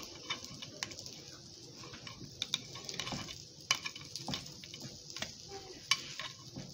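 A metal spoon tapping and scraping against a metal ring mould as cooked rice is spooned in and pressed down, giving light, irregular clicks and ticks.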